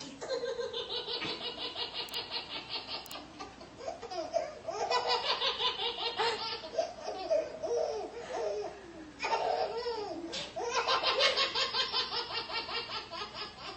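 A baby laughing hard in long runs of quick, breathy belly laughs, about four pulses a second, with short breaks between runs.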